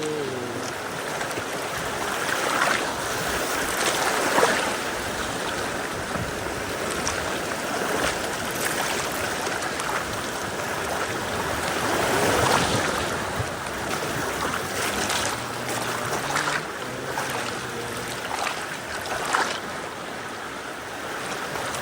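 River water rushing and splashing around a bamboo raft as it drifts downstream, with louder splashes now and then.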